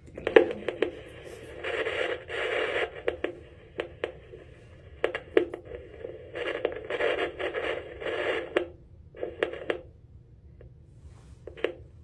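Veterinary Doppler flow detector's speaker hissing and crackling in irregular bursts with scratchy clicks, as its probe is moved over the parrot's leg to find the pulse.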